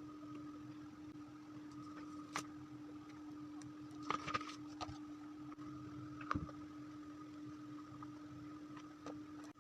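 Album packaging being handled during unboxing: a few short sharp clicks and taps, a cluster of them about four seconds in and the loudest a couple of seconds later, over a steady low hum.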